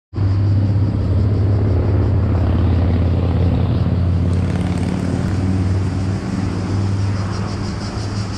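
A motor vehicle's engine running with a steady low drone.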